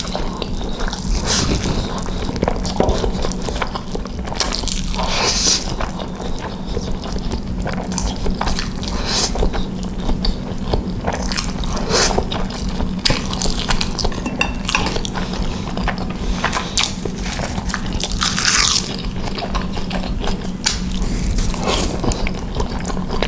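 Close-miked eating sounds: a person chewing and biting into spicy noodles, with many short wet mouth clicks throughout.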